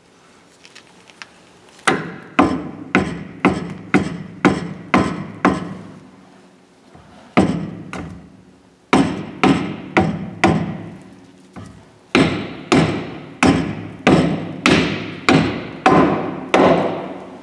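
Soft-faced hammer striking a Ford F-250 wheel bearing hub assembly, driving it into place. Repeated sharp blows, about two a second, each followed by a short metallic ring, in runs broken by pauses of a second or two.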